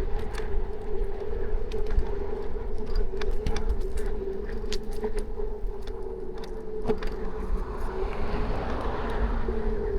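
Electric scooter riding along: a steady motor whine with clicks and rattles from the scooter and low wind rumble on the microphone. Near the end the whine falls in pitch as the scooter slows.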